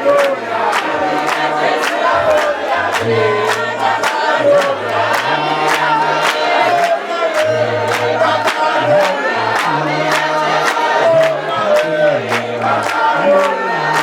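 A choir or congregation singing a gospel song together over a stepping bass line, with a sharp beat about three times a second.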